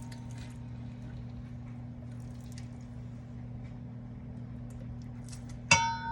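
Lemon juicing: faint liquid drips and small wet ticks over a steady low hum. Near the end there is one sharp ringing clink of kitchenware.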